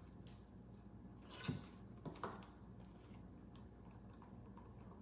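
Plastic epoxy jug and measuring container being handled: a brief scrape about a second and a half in, then two light knocks, over a faint steady low hum.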